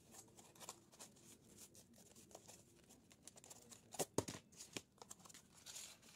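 Pleated craft paper rustling and crinkling as it is handled, with a few sharper paper snaps about four seconds in as the folded fan is swung open.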